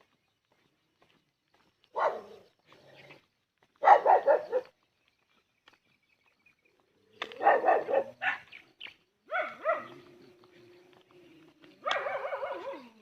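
A puppy barking in several short bouts of rapid yaps, the loudest bout about four seconds in.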